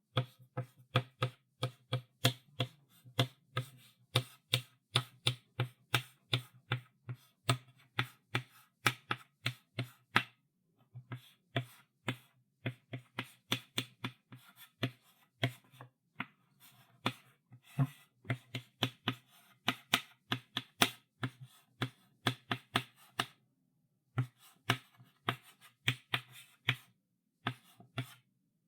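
Chalk writing on a blackboard: a quick run of sharp taps and short scratchy strokes, about three a second, broken by brief pauses about ten seconds in and again near the end.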